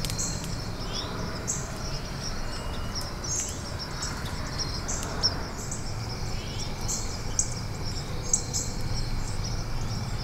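Outdoor field ambience: insects trilling steadily, with short high chirps repeating irregularly and a few brief bird chirps, over a low steady background rumble.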